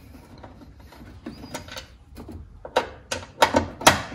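Sharp metallic clicks and knocks as M6 bolts are fitted by hand to hold the door lock inside a car door. A few light clicks come first, then a cluster of louder ones from about three seconds in.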